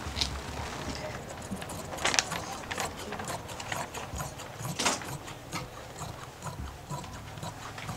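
Scissors cutting out jacket fabric: a run of irregular snips as the blades close through the cloth, with a few louder clicks among them.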